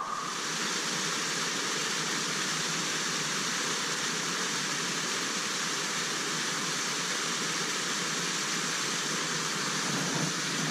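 Steady rush of a small stream's water spilling over a little waterfall.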